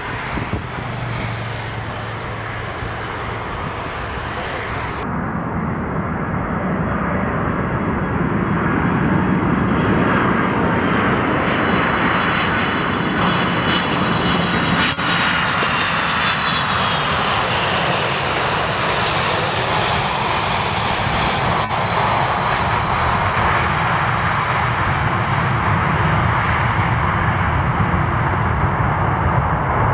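Boeing 747 freighter's four jet engines on landing approach and touchdown, a steady jet roar that swells over the first ten seconds. A high whine falls in pitch as the aircraft passes.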